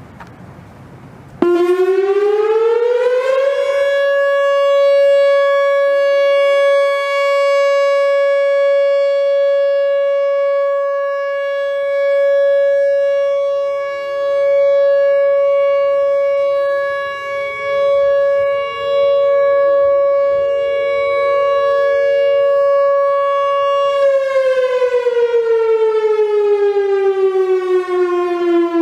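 Whelen WPS-4004 electronic outdoor warning siren sounding its 20-second steady alert at about 560 Hz. It sweeps up about a second and a half in, holds one steady tone, and glides down in pitch near the end. Fainter rising tones sound beneath it in the middle.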